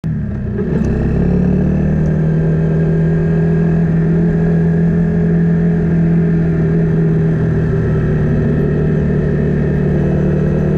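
Engine of a Buccaneer 125 motorcycle running under way at a steady speed, a loud, even drone that rises a little in pitch about a second in and then holds steady.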